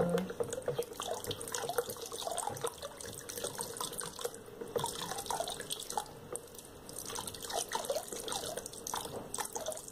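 Ethanol poured in a thin stream into a plastic bucket of raw soap mixture, trickling and splashing, with many small scattered ticks and splashes. This is the stage where the alcohol is added slowly to the saponifying oil and lye.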